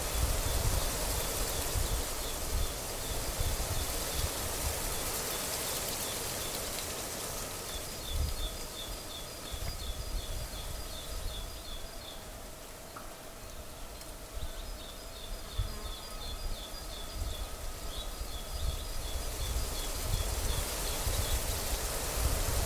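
Wind gusting across the microphone, with uneven low rumbling buffets under a steady rushing hiss. Over it comes a high, rapid chirping of several short, evenly spaced notes a second, in two runs of several seconds each: from the first third to about halfway, then again from about two-thirds of the way until near the end.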